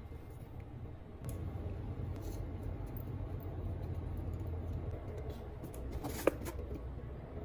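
Spice jars handled and shaken over a small ceramic bowl, with scattered light clicks over a low steady hum. About six seconds in, one sharp clink with a short ring as a glass spice jar is set down on the counter.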